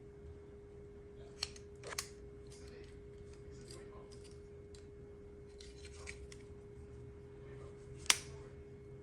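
Handling of a plastic toy robot figure: light rubbing and rustling with sharp clicks about one and a half and two seconds in and a louder one near the end, over a steady faint hum.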